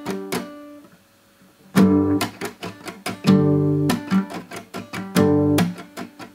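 Steel-string acoustic guitar played with palm muting. Runs of quick, dead, percussive muted strums ("cek cek cek") alternate with short chords that are cut off after about half a second, in a repeating pattern.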